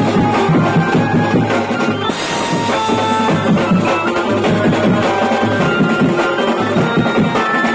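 Maharashtrian street beats band playing live: several drummers beating fast rhythms on snare drums and toms, with cymbals, over a keyboard melody. A cymbal crash about two seconds in.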